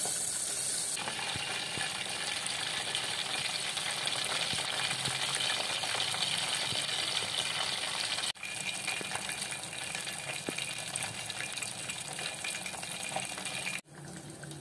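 Whole Indian mackerel deep-frying in hot oil in a stainless steel pot: a steady, dense sizzle of bubbling oil. The sizzle grows fuller about a second in as the fish goes in. It drops out briefly twice, about eight and fourteen seconds in.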